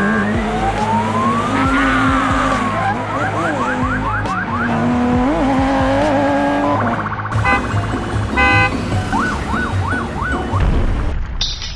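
Electronic siren and alarm sounds: a slow rising-and-falling wail, then bursts of quick repeated rising sweeps and stretches of rapid beeping.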